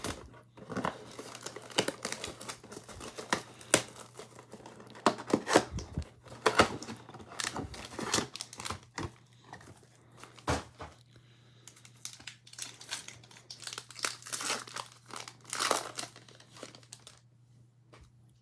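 Crinkling and tearing of the plastic wrapping on a football trading card mega box and its packs as they are ripped open by hand: an irregular run of crackles and rips that dies away about a second before the end, over a faint steady low hum.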